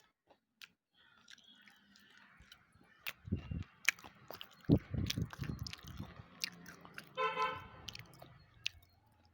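Wet slate chips being bitten and chewed close to the microphone: sharp crisp crunches and clicks with low jaw thuds. About seven seconds in, a short horn-like pitched tone sounds.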